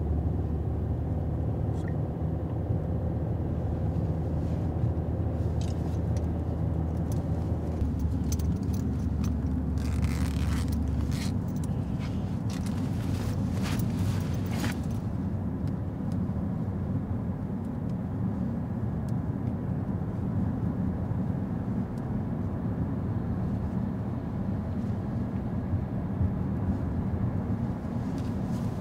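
Car interior while driving: a steady low rumble of engine and road noise. Its tone shifts twice partway through, and a few short sharp noises come in around the middle.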